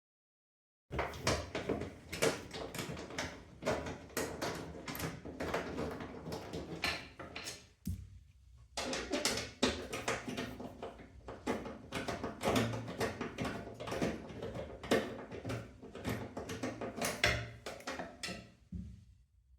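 Hand tools working the bolts of a wheel vise loose from a steel motorcycle lift table: a fast, dense run of clicks and metal clinks, pausing briefly about eight seconds in.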